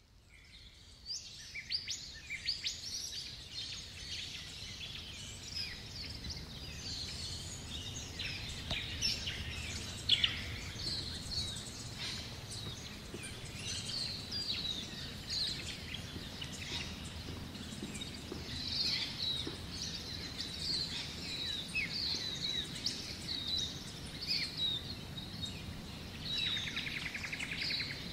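Many wild birds chirping and calling over one another, with a low steady rumble underneath. There is a single sharp knock about ten seconds in, and a fast, even trill near the end.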